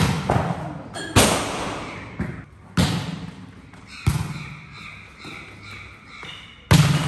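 A volleyball being struck in a practice rally: five sharp smacks, roughly one every one to two and a half seconds. Each one rings out briefly under the covered court's roof.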